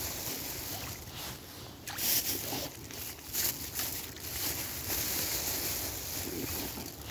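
Mute swans and their cygnets feeding at the water's surface, their bills dabbling and dipping with many short, repeated splashes and sloshing.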